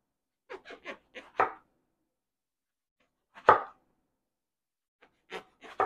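Chef's knife slicing through a raw eggplant and knocking on a wooden cutting board. A quick cluster of crisp cuts comes about half a second in, a single loud knock about three and a half seconds in, and another few cuts near the end.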